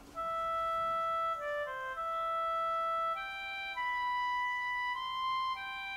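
Background music: a slow melody of long held notes on a wind instrument.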